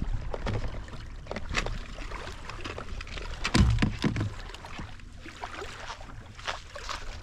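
Irregular knocks, clicks and rustling from gear being handled aboard a fishing kayak, over a low rumble, with one heavier thump about three and a half seconds in.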